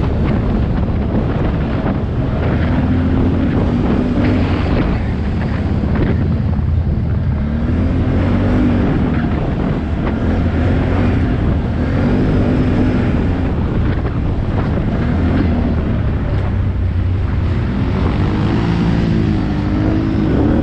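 ATV engine running while riding, its pitch rising and falling again and again as the throttle is opened and eased off, with wind buffeting the microphone.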